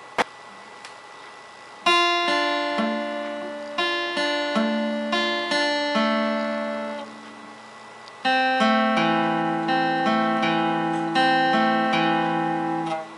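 Instrumental background music of single plucked notes, in two slow phrases with a pause of about a second between them. A short sharp click comes right at the start.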